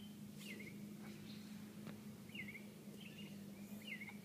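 A few short bird chirps, faint, over a steady low hum.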